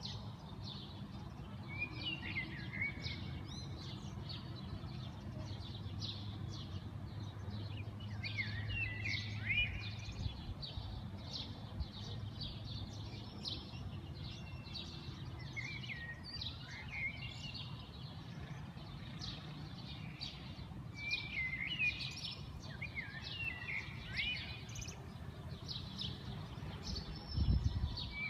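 Birds chirping and singing, with a short repeated phrase several times over and quick chirps between, over a steady low background rumble. A low thump near the end.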